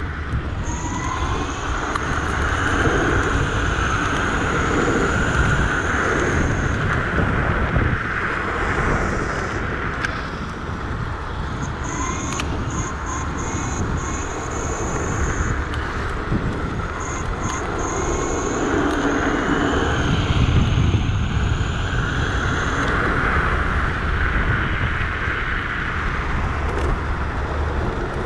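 Wind rushing over the microphone and tyre noise from a Dualtron electric scooter ridden fast around a rubber running track. The rushing swells and eases, and a thin high whine cuts in and out several times.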